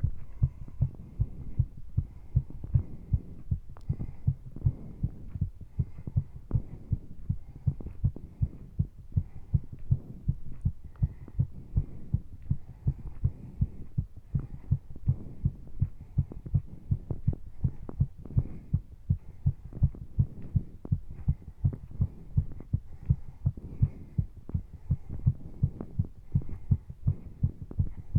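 Human heartbeat pounding fast in a steady, even rhythm, raised by exercise, with breathing heard underneath.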